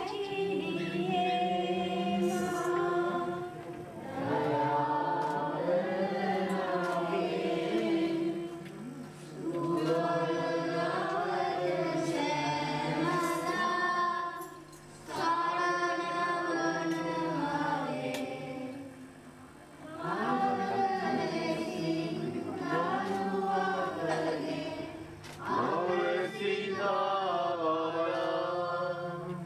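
A group of people singing a hymn together, in phrases of about five seconds with short breaks between them.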